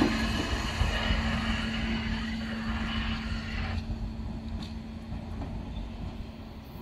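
Oslo Metro MX3000 train pulling out of the station and running away down the line, its running noise fading steadily and its hiss dropping away about four seconds in, over a steady low hum.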